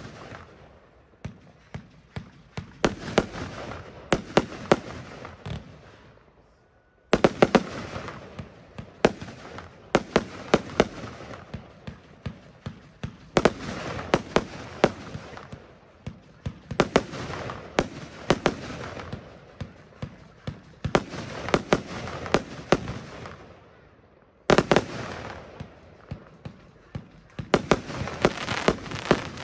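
Röder Feuerwerk "Jubelbox" fireworks firing in volleys: sharp bangs of shots launching and bursting, several a second, with crackling in between. Twice it falls almost quiet for a moment, then starts again with a loud bang.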